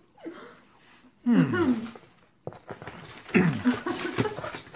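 Low, breathy laughter that falls in pitch, twice, with rustling and clicks from handling snack packaging in the second half.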